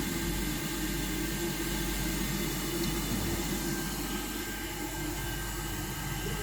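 Steady hiss of a hot air rework station's blower running at low airflow.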